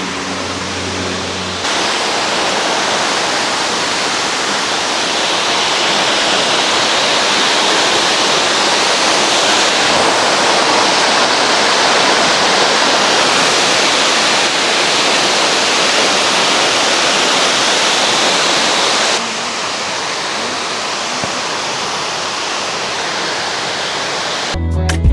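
Waterfall pouring, a steady loud rushing of falling water across the whole range. Its level steps up and down sharply a few times, about two seconds in and again later, at edits between shots.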